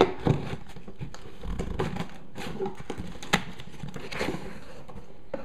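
Taped cardboard shipping box being handled and opened: rustling and scraping of cardboard and packing tape, with sharp knocks at the start and about three seconds in.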